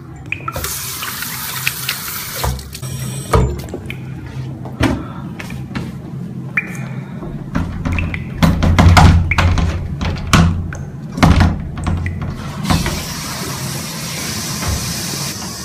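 Toilet flushing, a rushing hiss of water in the first couple of seconds, followed later by a run of sharp knocks and bangs over a low drone.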